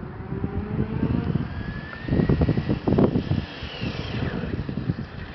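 Exceed Sunfire RC buggy running, its motor whine rising in pitch as it speeds up, then falling away near the end. Loud rough noise swells over it about two to three and a half seconds in.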